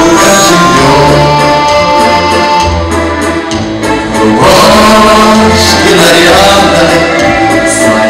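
Two men singing a song together into microphones over instrumental accompaniment.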